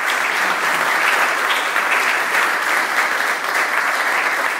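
A roomful of people applauding, steady dense clapping throughout.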